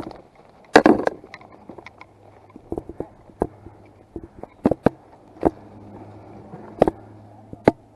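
Airsoft guns firing single shots at irregular intervals, a dozen or so sharp snaps, a couple of them louder and closer.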